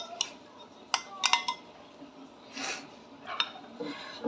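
A metal utensil clinking and scraping against ceramic as sauce is scraped out of a bowl onto chicken in a baking dish. There are several sharp clinks in the first second and a half, a short scrape a little past the middle, and one more clink later.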